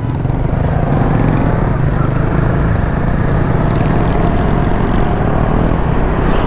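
Bajaj Dominar 400's single-cylinder engine running as the motorcycle pulls away and rides along the highway, with wind and road noise on the bike-mounted microphone. It grows louder over the first second, then holds steady.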